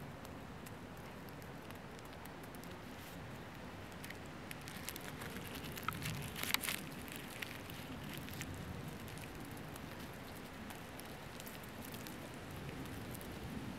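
Green rose chafer chewing on banana, close up: faint, soft, irregular clicks and crackles from its mouthparts working the fruit, with a brief denser flurry about halfway through.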